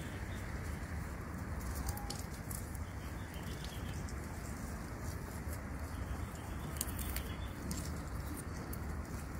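Outdoor woodland ambience: a steady low rumble with scattered faint clicks, and one short, faint bird call about two seconds in.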